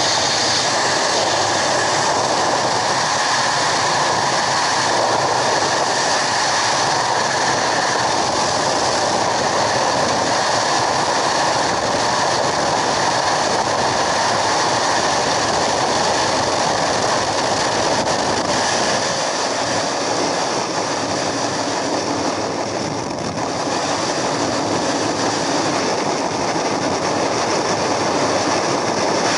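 Loud, steady rush of wind on a helmet-mounted camera microphone, together with the jump plane's engine and propeller at the open door, giving way to the rush of air in freefall.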